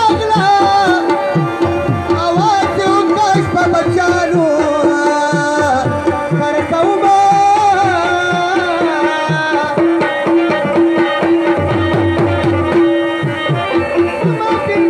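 Live South Asian folk music with tabla-style hand drums beating a fast, busy rhythm under a held drone note and a melodic line. It is played loud and amplified through a PA.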